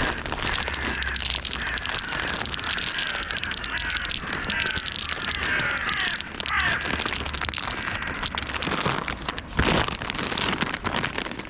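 Crows cawing repeatedly over a constant crackle of rustling and handling noise, with a single thump a little before the end.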